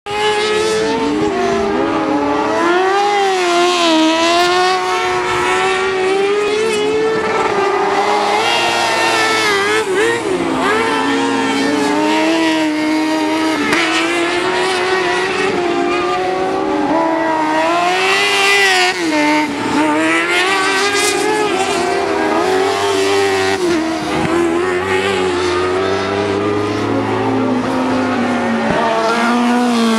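Racing buggy engines revving hard on a tarmac circuit, the engine note rising and falling again and again as the buggies accelerate down the straights and lift off for the corners.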